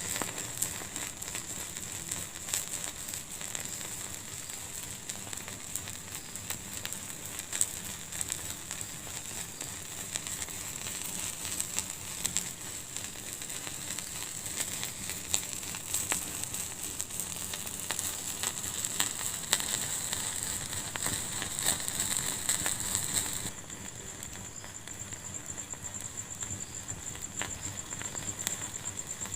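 Wood fire burning in a fireplace, crackling with scattered sharp pops over a steady hiss. A little after three-quarters of the way through, the sound abruptly turns slightly quieter.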